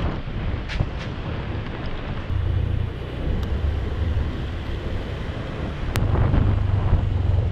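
Wind rushing over the microphone of a moving motor scooter, with low road and engine rumble underneath. A sharp click about six seconds in.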